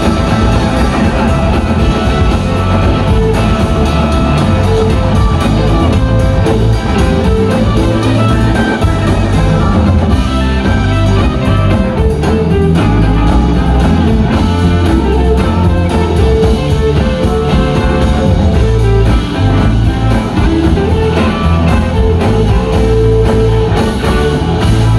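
Live rock band playing loud: two electric guitars over a drum kit, heard through the concert PA from within the crowd.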